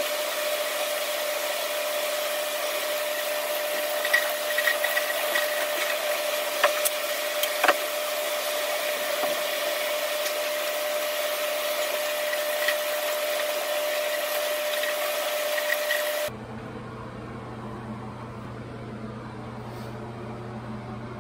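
Shower running: water spraying from the showerhead onto the tub and tiles, a steady hiss with a steady tone through it and a few small knocks. About sixteen seconds in it cuts to a quieter low hum.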